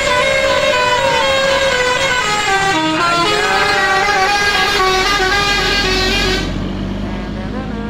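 Indonesian bus telolet horn: a set of musical air horns playing a fast, many-note tune with sliding pitches. The higher notes drop away about six seconds in, and a bus engine's low rumble comes up underneath.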